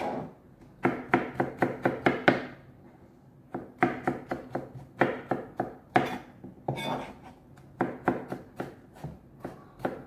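Chef's knife chopping tomatoes on a cutting board: quick runs of sharp knocks, about five a second, broken by short pauses.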